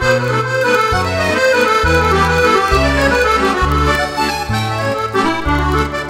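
Roland FR-8x digital accordion playing an Argentine vals, a melody and chords over bass notes that change about once a second.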